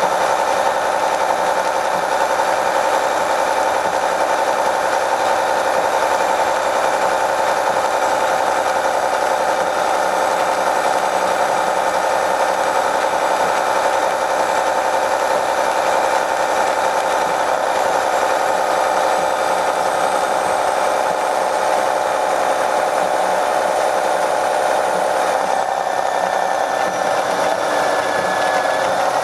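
Detroit Diesel Series 60 engine and Allison transmission of an MCI D4500 transit coach under way, heard from inside the bus as a steady drone with a faint high whine. The recording is processed to cancel passengers' voices, which gives it an odd, hollow quality. Near the end the sound changes and the whine falls in pitch.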